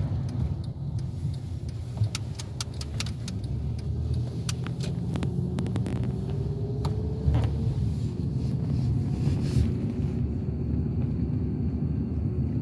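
Road and engine rumble heard from inside the cabin of a moving car, with a scattering of light clicks and rattles between about two and seven seconds in.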